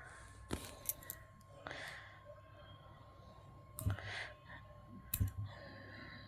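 A few faint, separate clicks and knocks from kitchen utensils being handled, with short soft rustles between them.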